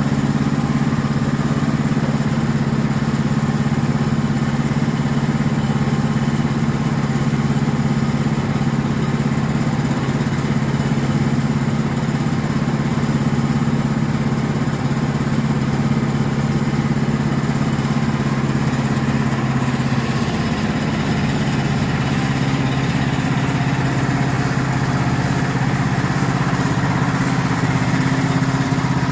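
Sawmill's engine running steadily, its pitch shifting slightly about two-thirds of the way through.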